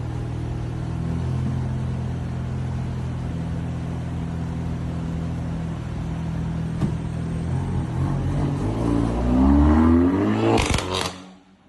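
Custom exhaust on a Mk8 VW Golf GTI with a DSG gearbox: the engine runs steadily, then climbs in pitch as it revs up. Near the end it gives a short burst of sharp cracks, the exhaust 'fart', and the sound drops away suddenly.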